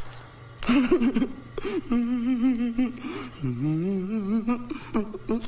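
A man's wordless voice: a few short vocal sounds, then a long wavering, quivering moan that rises and falls in pitch.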